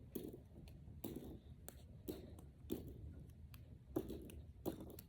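Brain Flakes plastic discs being pushed together one after another: a string of small, sharp plastic clicks, about one or two a second.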